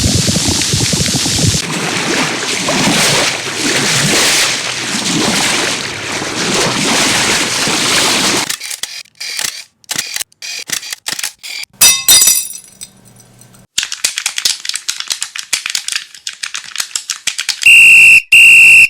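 A string of unrelated sound effects. First a steady noisy hiss, then scattered clicks and crackling. Near the end comes a loud, high, piercing electronic beep in pulses.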